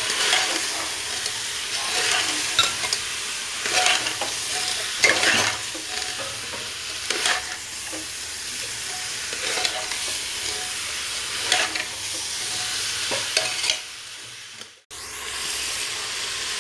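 Chicken and masala frying in oil in an open aluminium pressure cooker, sizzling steadily while a metal spatula stirs and scrapes against the pot every second or two. The sound breaks off for about a second near the end, then the sizzling resumes.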